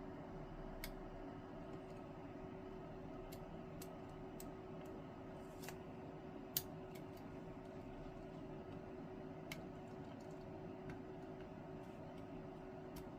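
Faint, scattered clicks of a half-diamond lock pick probing the side pins of an ASSA Desmo lock, one sharper click about six and a half seconds in, over a steady hum.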